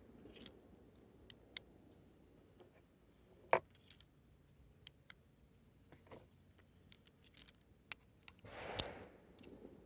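Scattered sharp metallic clicks and small knocks, about a dozen at irregular intervals, from an M1895 Nagant revolver being handled. The two loudest come about three and a half seconds in and near the end, the last with a brief rustle around it. No shot is fired.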